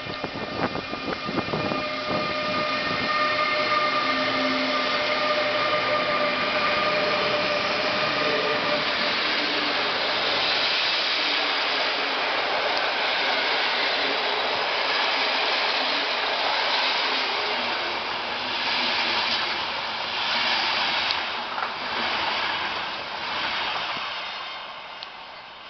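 Electric intercity train pulling out behind two Siemens Taurus electric locomotives and running past at low speed. Wheel clicks and a steady whine come while the locomotives pass, then the coaches roll by with rhythmic wheel clatter. The sound fades near the end as the train draws away.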